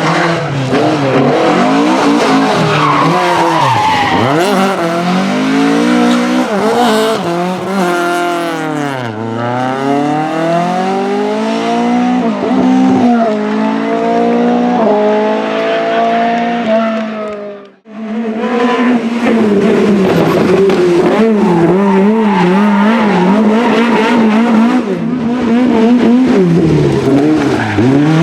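Rally car engines revving hard, their pitch climbing and falling with gear changes and lifts, over tyre noise from sliding. The sound cuts out briefly about two-thirds of the way through, then another car is heard revving.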